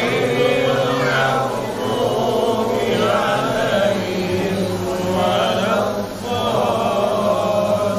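A group of voices chanting an Islamic devotional recitation together, in rising and falling phrases of about two seconds each.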